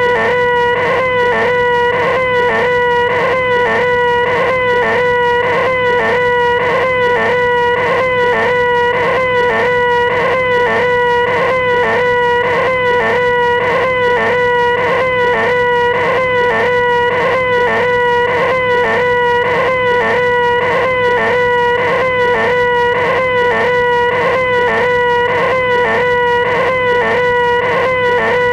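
A man's voice making a loud, nasal, high-pitched 'eeeeh' whine, the 'most annoying sound in the world', held on one steady pitch without a break and wavering a couple of times a second.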